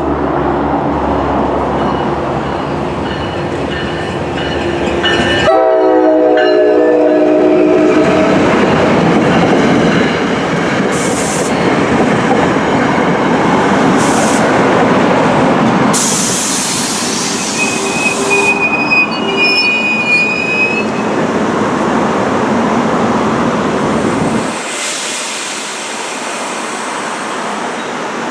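NJ Transit commuter train at a station: the locomotive horn sounds about five seconds in, followed by the loud rumble of the train on the rails. Short hissing bursts and a brief high squeal come a little past the middle.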